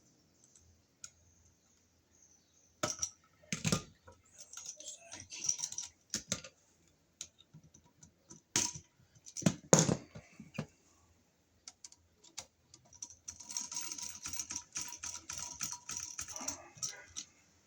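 Small clicks and handling noises from hand tools and wire at a wall receptacle as the black wire is hooked around the brass terminal screw, followed a few seconds later by a stretch of steady scratching as the screw is tightened down.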